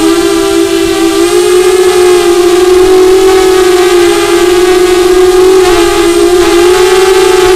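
An FPV drone's motors and propellers, heard close to its onboard camera, make a loud steady hum. The pitch wavers slightly as the throttle is adjusted in a low hover.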